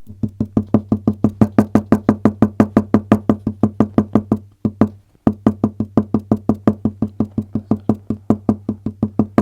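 Leg tapping: a rapid, even run of dull thuds, about five or six a second, breaking off briefly about halfway through before carrying on.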